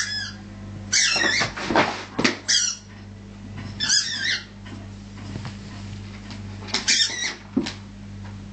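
A dog's rubber squeaky ball being bitten and chomped, squeaking in about five short, high-pitched bursts, with a few dull knocks of the toy and paws between them.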